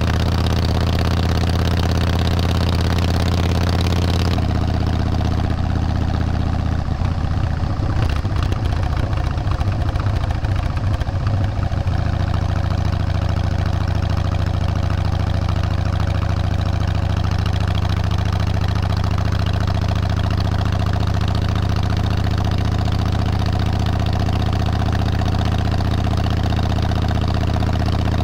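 An engine running steadily, its sound shifting at about four seconds in and wavering unevenly for a few seconds before settling back into an even run.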